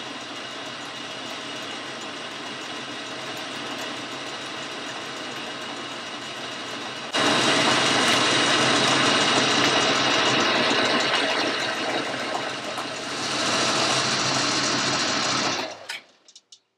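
Boxford metal lathe running with the chuck spinning while a tool turns down a steel spindle. About seven seconds in the sound becomes suddenly louder, and it stops abruptly near the end as the lathe is switched off.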